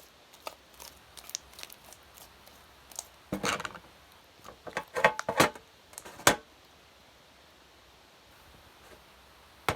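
A spoon clicking and scraping against a bowl as the slime mixture is stirred: scattered light clicks, a short run of scraping about three seconds in, and a louder string of knocks around five to six seconds.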